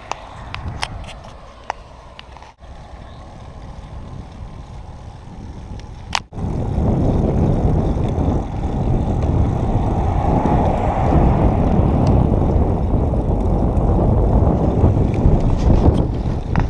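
Road bike rolling on asphalt, with wind rushing over the bike-mounted camera's microphone, a steady rushing noise heaviest in the low end. A few sharp ticks come in the first couple of seconds. After a brief dropout about six seconds in, the rush is louder.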